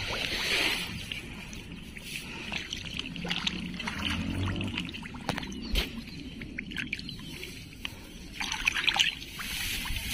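Hands working in wet paddy mud and shallow water while feeling out an eel burrow: small splashes, squelches and scattered clicks, with two brief louder washes of sound, one near the start and one near the end.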